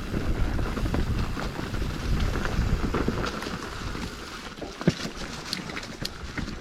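Mountain bike riding along dirt singletrack: tyres rolling over loam with wind rumbling on the microphone, and scattered clicks and rattles from the bike over bumps. The rumble eases somewhat a little past halfway.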